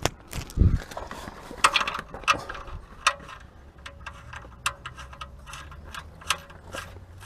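Irregular sharp clicks and light knocks of tools and parts being handled during a car oil change, over a faint steady low hum.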